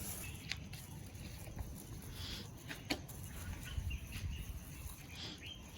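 Quiet outdoor background with faint, scattered bird chirps and a couple of light clicks.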